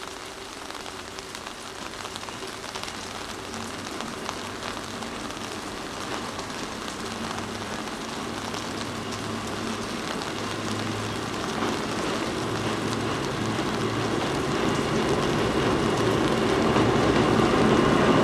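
Kurobe Gorge Railway narrow-gauge electric train with 13 trolley cars pulling away and drawing nearer: a hiss of running noise with a low motor hum, growing steadily louder.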